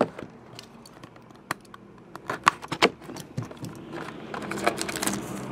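Hands handling a trading-card box as its lid is opened and the packs in its tray are touched: scattered sharp clicks and taps, with softer handling noise near the end.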